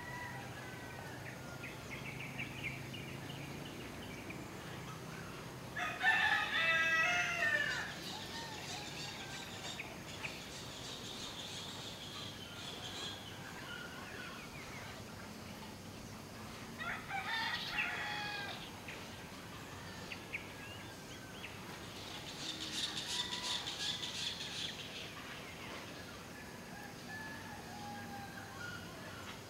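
A rooster crowing several times, each crow lasting one to two seconds, with faint bird chirps in between.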